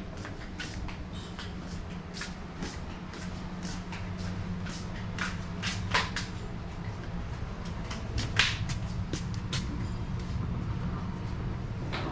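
Footsteps on a paved walkway, about two steps a second, over a steady low hum, with a louder knock about eight seconds in.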